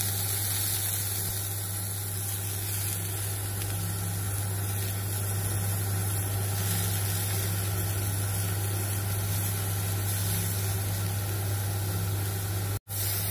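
Aubergine slices sizzling on a hot oiled ridged grill pan, a steady hiss over a constant low hum. It stops briefly for a moment near the end.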